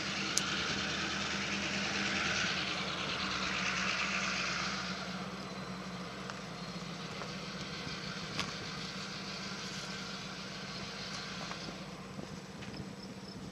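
A steady low engine hum under a wash of vehicle noise that is louder for the first five seconds and then eases off, with a sharp click near the start.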